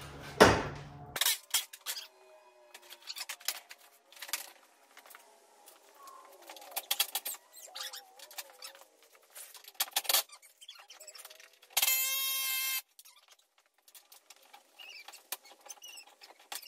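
Hand tools working on a truck's stripped front end: scattered metallic clicks, clinks and squeaks as fasteners are worked. About twelve seconds in comes a louder buzzing burst lasting about a second.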